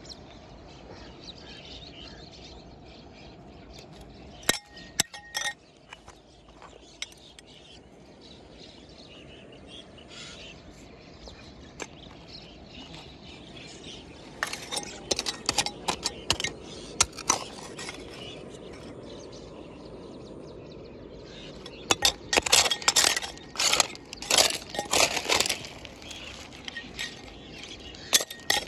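Pebbles and stones clinking and knocking against each other as gravel is raked out by hand: a few knocks about five seconds in, scattered clinks in the middle, and a dense run of clinks near the end.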